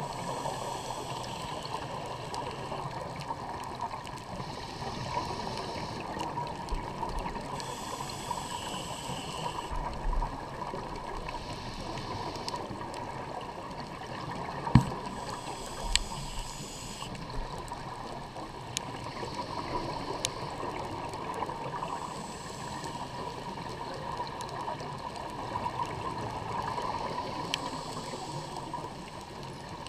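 Scuba diver's regulator heard underwater through a camera housing: the hissing rush of exhaled bubbles every few seconds over a steady background hiss. A single sharp knock sounds about halfway through.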